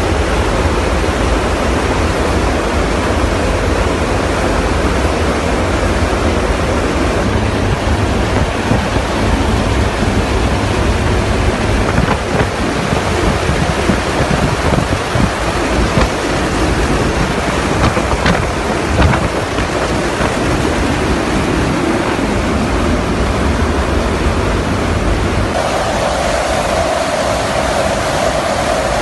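Loud, steady rush of wind and aircraft engine noise heard from the open rear cargo ramp of a military transport aircraft in flight. A steady tone joins in near the end.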